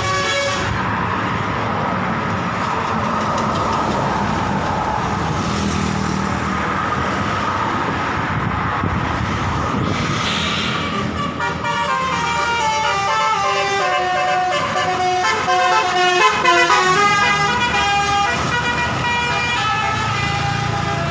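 Bus engine and traffic noise. About halfway through, a Basuri telolet multi-tone bus horn starts playing a tune of quickly changing notes, loudest a little after the middle of its run.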